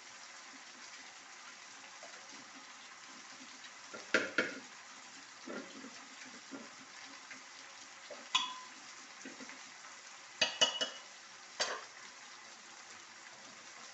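A metal spoon stirring in a cooking pot of dal over a steady sizzle, with sharp clinks of metal on the pot, several in a quick cluster about two-thirds of the way through.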